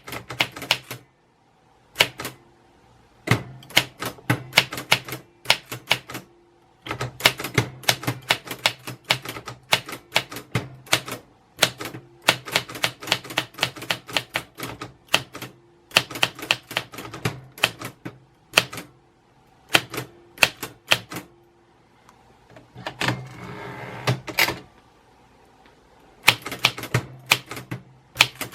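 Typewriter keys striking in quick runs of clacks, with short pauses between words and lines. A longer rasping sound comes about four-fifths of the way through.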